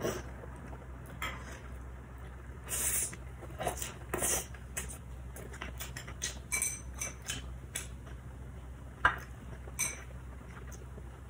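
Metal chopsticks clinking and scraping against a small bowl of dipping sauce: scattered light taps and clicks, the sharpest about nine seconds in.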